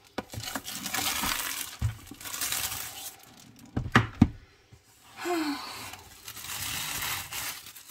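Plastic shrink-wrap being torn and pulled off a long cardboard kit box, crinkling in several bursts, with three sharp knocks about halfway through as the box is handled on the table.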